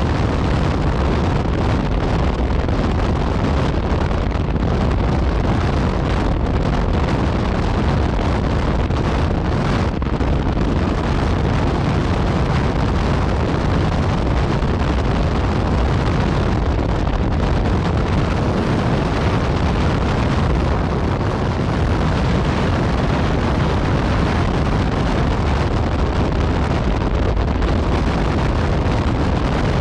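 Yamaha MT-09 Tracer's inline-three engine with an Akrapovic exhaust running steadily under way, heavily mixed with wind noise on the microphone.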